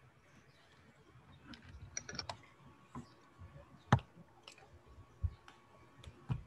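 Faint, scattered clicking at a computer, with one sharper click about four seconds in.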